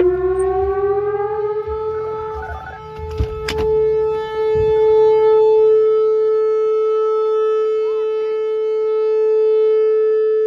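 Whelen Vortex electronic outdoor warning siren sounding its test: a low tone that rises in pitch over the first two seconds, then holds one steady tone. A couple of sharp knocks come about three and a half seconds in.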